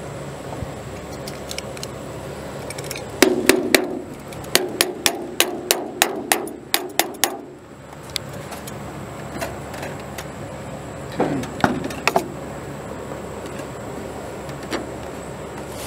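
Sharp taps and clicks of a sheet-metal gutter section being handled, about two or three a second for several seconds, followed by a couple of duller knocks near the two-thirds mark.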